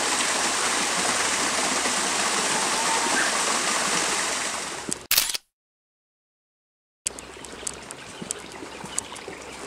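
Small waterfall splashing steadily down a rock face into a pool, as an even rushing of water. It cuts off abruptly about five seconds in, followed by a second and a half of dead silence, then a much quieter outdoor background with scattered light clicks.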